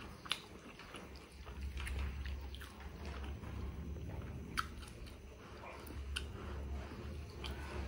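A person chewing mala hotpot noodles, with a few sharp clicks of a spoon against the pot.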